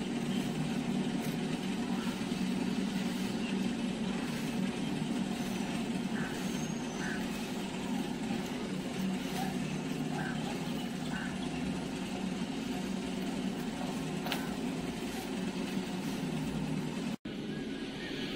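A steady low engine-like drone, such as a motor or vehicle running, with a few faint short chirps over it in the middle. It cuts out for an instant near the end.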